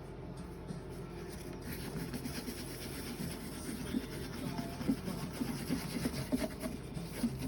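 Alcohol-soaked paper towel rubbed and scraped over cured resin on a resin 3D printer's LCD screen, in irregular strokes that grow stronger from about two seconds in.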